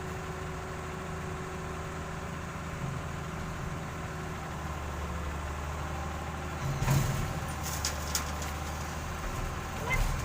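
Excavator's diesel engine running steadily, a little heavier about five seconds in, with a couple of sharp clanks about seven and eight seconds in and another near the end.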